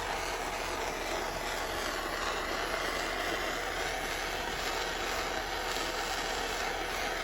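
Jeweller's soldering torch flame hissing steadily while it heats a silver piece and the wire solder flows along the seam.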